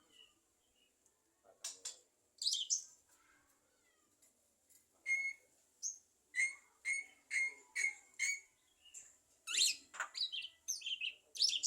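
Javan myna calling: a series of short, sharp whistled notes, with a run of about five evenly spaced repeated notes in the middle and a quicker burst of varied notes near the end.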